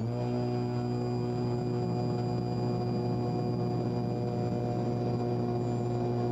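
Archaeopteryx glider's launch motor running at a steady pitch during the takeoff roll: an even, droning hum with a thin high whine above it, unchanging throughout.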